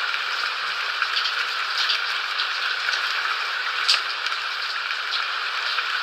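Steady rain falling, a dense hiss with scattered drops ticking on a surface and one sharper drip about four seconds in.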